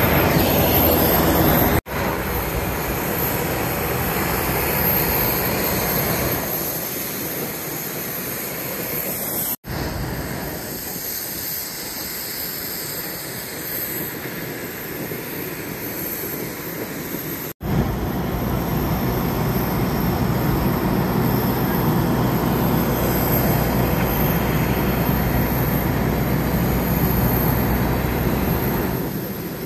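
Steady rumble and rushing noise of airliner engines, in a few short clips cut together. The last stretch is louder, with more low rumble.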